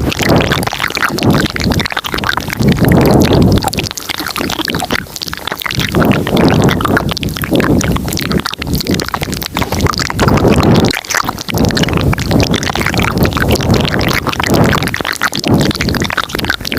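Layered ASMR mouth sounds close to the microphone: dense clicking over low swells that rise and fall every second or two.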